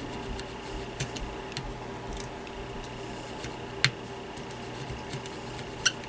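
Scattered light clicks and taps of small parts being handled on a workbench, over a steady faint hum, with two sharper clicks about four and six seconds in.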